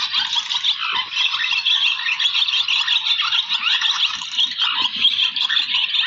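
A large flock of swallows twittering: many overlapping high chirps and quick rising and falling calls in a dense, continuous chorus.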